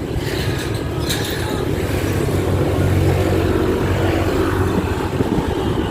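A motor vehicle engine running close by amid street noise, its low hum swelling to its loudest about halfway through and then easing off.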